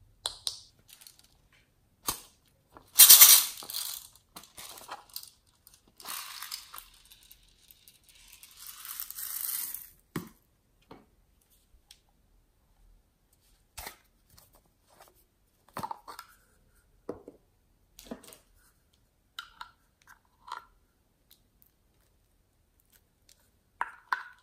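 Small plastic containers clicking and tapping as they are handled and opened, with rushes of glitter and sprinkles poured out over slime, the loudest about three seconds in and two softer ones between six and ten seconds.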